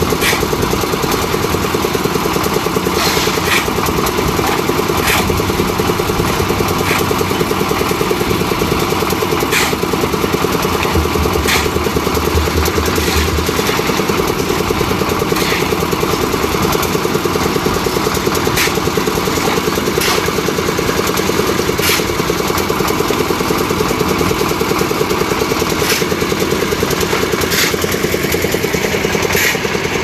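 Portable concrete mixer's engine running steadily with a fast even beat. Now and then a shovel scrapes and iron pans knock as concrete is loaded into them.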